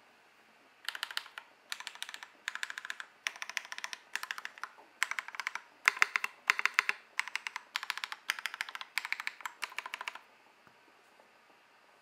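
Typing on a Matrix Noah V2 mechanical keyboard fitted with lubed Drop Holy Panda V2 tactile switches, a 1.5 mm aluminium plate and PBT keycaps: quick runs of keystrokes in short bursts, beginning about a second in and stopping about two seconds before the end.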